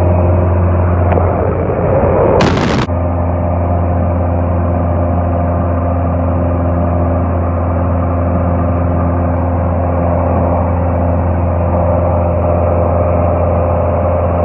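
Cabin sound of a Cessna F152 light aircraft in flight: the steady drone of its four-cylinder piston engine and propeller. A brief burst of noise comes about two and a half seconds in.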